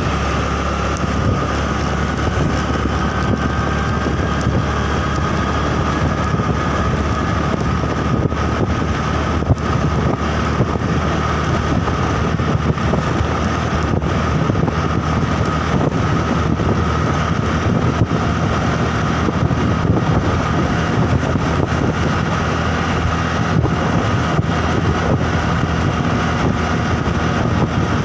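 Steady running noise of a moving road vehicle: engine and road noise with wind buffeting the microphone, and a steady high whine over it.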